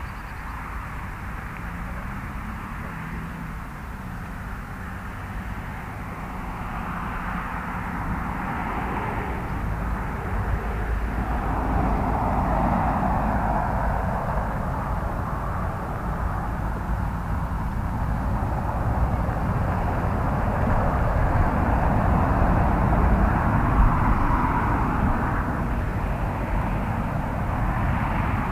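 Wind buffeting the microphone: a low rumble with a rushing hiss that swells and fades in gusts, strongest around the middle and again near the end.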